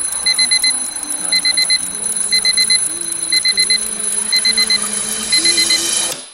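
Digital alarm clock beeping in quick groups of four short high beeps, one group each second, with a faint low melody underneath; it cuts off near the end.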